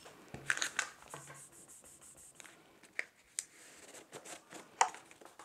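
Faint rustling of newspaper being handled on a glass wine bottle, with two light knocks about three seconds in and near the end.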